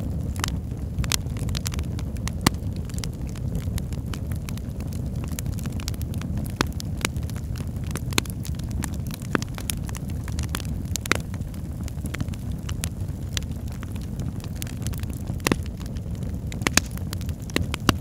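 Wood fire in a fireplace crackling: irregular sharp pops and snaps over a steady low rumble.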